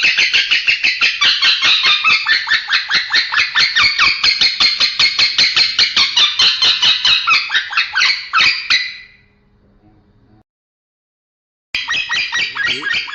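Male lovebird chattering in a fast, even run of harsh, scratchy notes, about five or six a second. The run fades out about nine seconds in, and after a short dead gap it starts again near the end.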